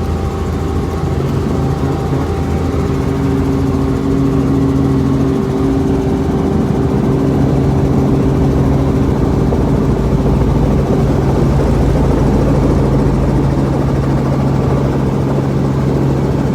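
Robinson R44 helicopter's engine and rotors running steadily: a constant low drone with several steady hum tones.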